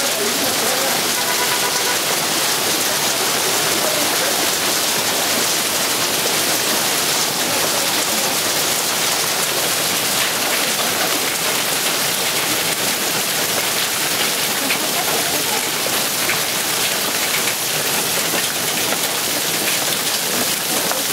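Hail and rain falling hard on pavement, roofs and parked cars: a steady, dense hiss.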